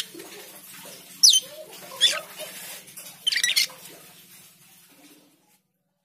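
Asian glossy starling calling: sharp whistled notes, one sweeping downward about a second in, another near two seconds and a quick run of notes after three seconds, over softer chattering. A steady low hum lies underneath, and everything stops a little after five seconds.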